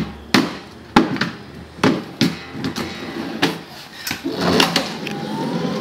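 Metal clunks and knocks as a portable CNC plasma cutter's carriage is lifted onto its rail and set down, about ten sharp knocks in the first four seconds. Near the end comes a longer scraping noise as the unit is shifted on the rail.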